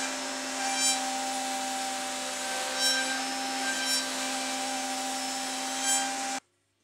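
A CNC router's 2.2 kW spindle, turning a 60 mm spoilboard surfacing cutter at about 12,000 rpm, takes a shallow facing cut across oak. It makes a steady whine with cutting noise and brief louder surges every second or two. The sound cuts off suddenly near the end.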